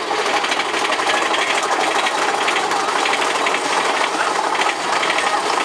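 Mine-train roller coaster rattling along its track, a fast, steady clatter of wheels and running gear heard from a seat on the train.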